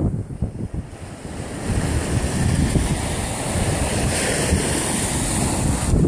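Lake waves washing against the shore, with wind buffeting the phone's microphone; the wash grows steadier about a second and a half in.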